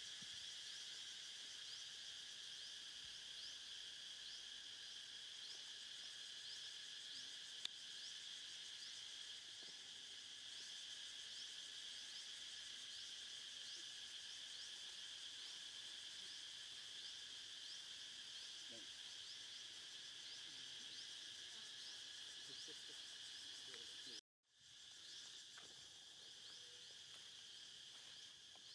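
Steady insect chorus: a continuous high-pitched buzz with a rapid, even ticking over it. It cuts out for a moment about 24 seconds in, then carries on slightly quieter.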